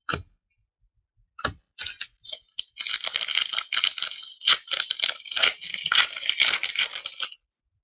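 Hockey card pack wrapper being torn open and crinkled by hand: a dense crackling rustle that starts about a second and a half in and stops shortly before the end.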